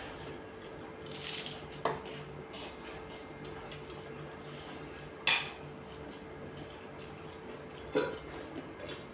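Fingers scooping and mixing rice on stainless steel plates, with three sharp clinks against the metal, the loudest about five seconds in.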